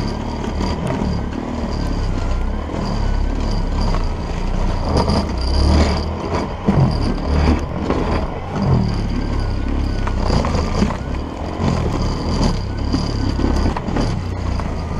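Electric-converted MTD single-stage snowblower running under load, its high-current electric motor keeping up a steady high whine over the heavy rumble of the auger churning through deep snow and throwing it out of the chute, with surges as it bites into fresh snow.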